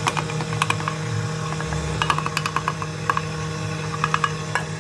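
Stand mixer running with a steady motor hum as it beats pastry cream with a flat beater, overlaid by clusters of light, sharp clicks and taps while powdered sugar is tipped in from a small metal bowl.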